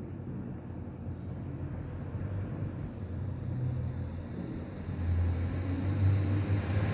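A low, steady rumble that swells about five seconds in.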